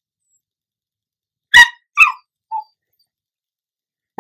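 Small dog vocalising while begging for food: two short, sharp barks about a second and a half in, a brief softer sound half a second later, and another call starting at the very end.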